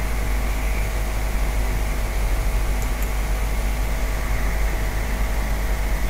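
Steady background hiss with a low hum and faint steady tones, even throughout, with no speech or music.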